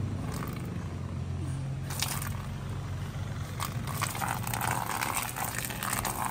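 A garden hose's water stream pouring onto the vinyl floor of a nearly empty above-ground pool, splashing steadily as the pool fills, over a steady low hum with a few faint knocks.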